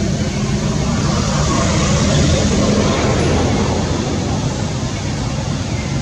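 Steady, loud background rumble and hiss with no distinct events.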